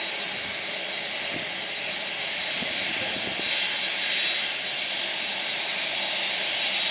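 Jet engines of a four-engine Boeing 747 running at taxi power as it rolls slowly, a steady whining hiss that grows a little louder about halfway through.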